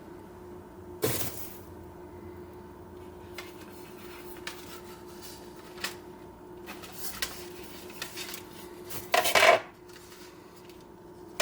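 Home-movie film reels and their cases being handled and set down: a sharp knock about a second in, light clicks and taps, then a louder clatter of hard objects near the end.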